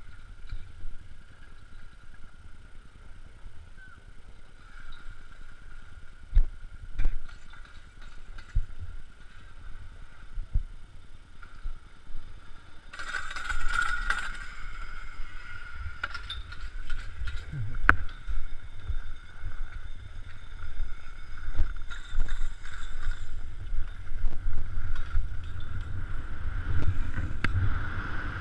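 Riding a T-bar ski lift with a steady low wind rumble on the camera and a steady high hum, broken by scattered sharp clicks. About halfway through, skis scrape and hiss loudly on the snow at the unloading point as the bar is let go. Near the end the skier heads downhill, with skis hissing on snow and the rumble growing louder.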